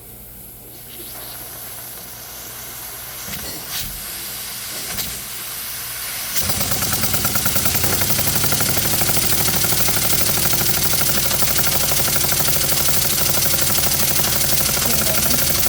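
Homemade steam engine fed by a small boiler: steam hisses louder and louder, then about six seconds in the engine picks up and runs fast with a rapid, steady, even exhaust beat.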